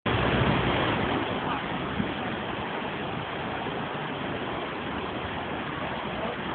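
A river in flood after heavy rain, its muddy water rushing steadily as a continuous noise, a little louder in the first second.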